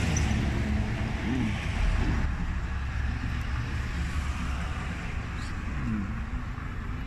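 Steady low rumble of street traffic, with faint voices in the background.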